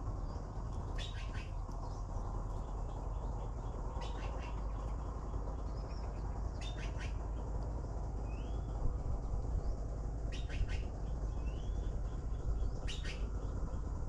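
Nestling birds begging, in clusters of two or three short, high chirps every few seconds, with a few short rising whistles, over a steady low background rumble.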